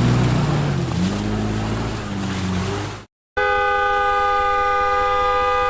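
SUV engine revving hard, its pitch rising and falling, while a stuck Mercedes G-class is pulled out of mud on a tow strap. It cuts off after about three seconds, and after a short gap a steady held chord of several tones takes over.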